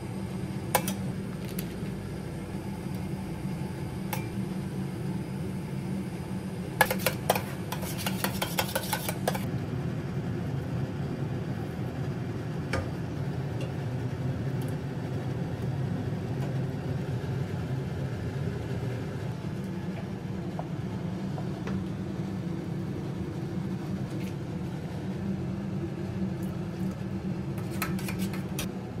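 Metal spoon clinking and scraping against stainless steel bowls: a quick run of taps about seven seconds in and single clinks now and then, over a steady low hum.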